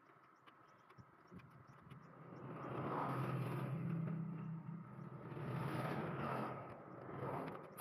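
Motor vehicles passing, their engine sound swelling and fading twice, with a few faint clicks near the start.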